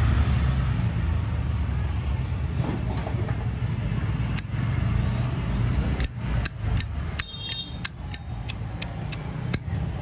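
Zippo lighter's metal case clicking: about a dozen sharp metallic clicks, some with a short bright ring, mostly in the last four seconds. A steady low traffic rumble runs underneath.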